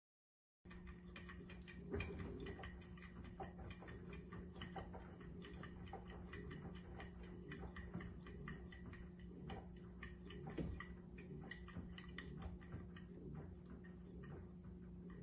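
Front-loading LG washing machine running with a steady hum, and irregular light clicks and taps throughout, with a couple of louder knocks.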